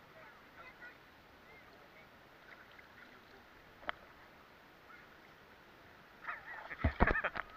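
Seawater lapping and sloshing around a camera held at the water's surface: faint for most of the time, with a single sharp click about halfway, then loud splashing and knocks near the end.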